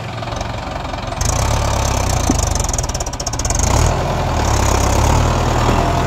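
Mahindra 575 DI SP Plus tractor's diesel engine running with a clattering beat as the tractor works a mounted disc plough through mud. The engine picks up speed about a second in and again near four seconds in.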